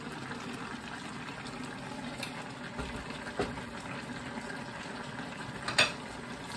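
Mussels and vegetables in broth simmering and bubbling in an uncovered pan, a steady bubbling hiss. A small knock comes about halfway through, and a sharp click near the end.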